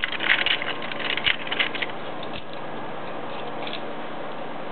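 Short cut pieces of metal model-train rail clicking and rattling as they are placed into a model gondola car, busiest in the first two seconds, then a few scattered ticks over a steady background hiss.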